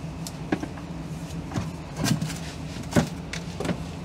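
A handful of sharp knocks and cracks as the rotten wooden freezer enclosure is pried apart with a pry bar, the loudest about three seconds in, over a steady low hum.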